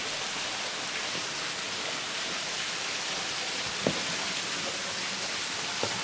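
Steady rush of a small waterfall splashing down, with one brief faint tap about two-thirds of the way through.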